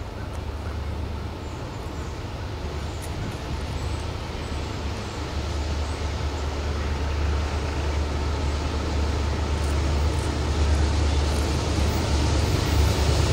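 Diesel locomotives of a freight train approaching, a low engine rumble growing steadily louder.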